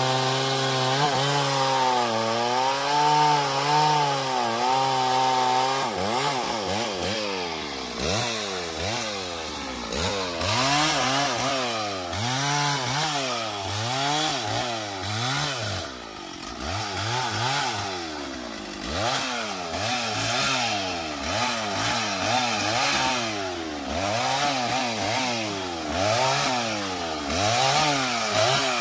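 Stihl two-stroke chainsaw cutting into a tree trunk under steady load for the first several seconds. Then the engine is revved up and down over and over, about once a second.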